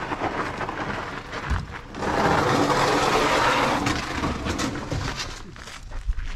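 Rustling handling noise close to a body-worn camera as racing gear is picked up, with a loud stretch of hissing rustle about two seconds in that lasts about two seconds, followed by scuffing footsteps on dirt.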